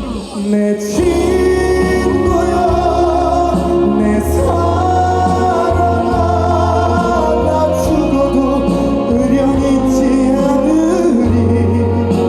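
Live band music with a singing voice holding long, wavering melody notes over a steady bass line. There is a short drop in loudness just at the start.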